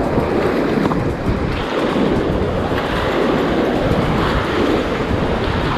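Ganges whitewater rapid rushing and splashing loudly around an inflatable raft as it runs through the rapid.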